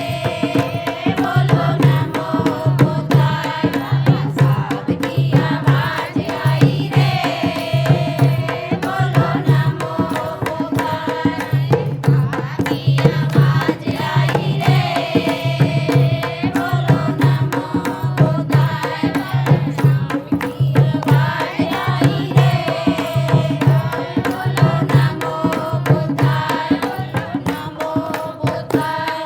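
Bhim geet, a devotional folk song, sung in repeating phrases over a steady hand-drum beat.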